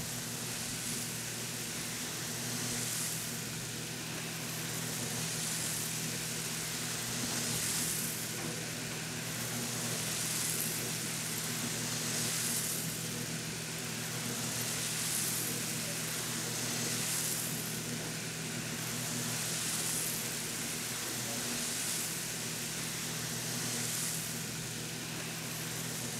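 Coffee roaster running: a steady motor and fan hum under the rustling hiss of freshly roasted beans being stirred in the cooling tray. The hiss swells about every two seconds as the stirring arms sweep round.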